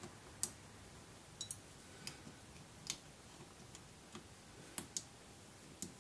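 A handful of faint, irregular small metal clicks as a screwdriver works at the trigger assembly of a Stoeger X20 S spring air rifle.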